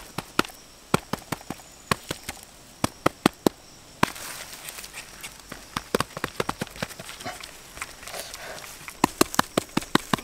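Rapid, irregular clacking of a ladle against a metal cooking pan as the coconut burfi mixture is stirred, several knocks a second. A faint hiss comes in about four seconds in.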